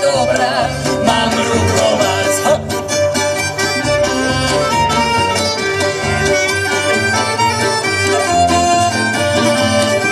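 Instrumental music with a sustained melody line over changing bass notes and percussion hits.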